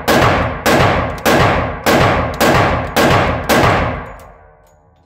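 Glock 20 pistol firing a steady string of 10mm rounds, seven shots about 0.6 s apart, each followed by a reverberant decay. The last shot comes about three and a half seconds in, and its echo dies away.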